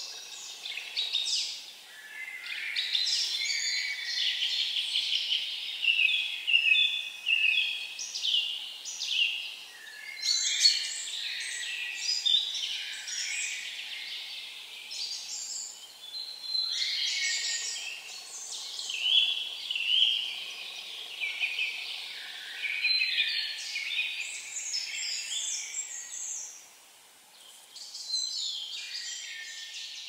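Small songbirds singing in a series of rapid, twittering phrases a few seconds long, with short pauses between them and a brief lull near the end.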